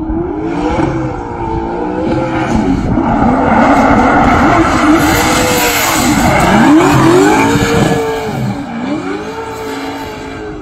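Drift car's engine revving up and down hard as it slides past, with tyres screeching on the asphalt. Loudest in the middle as the car comes closest, fading toward the end.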